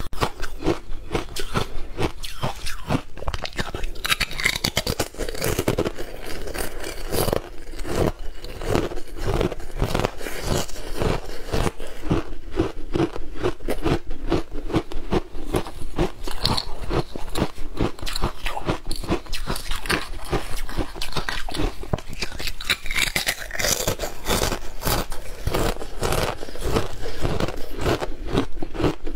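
Hard frozen ice being bitten and chewed, with dense, irregular crunching and cracking throughout.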